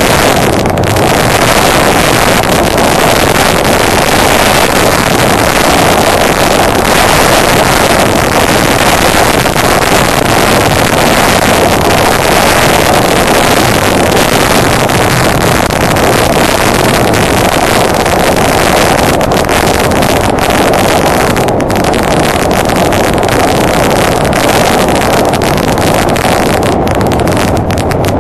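Honda Deauville NT650V motorcycle on the move: a steady rush of wind on the microphone over the running of its V-twin engine at an even cruising speed.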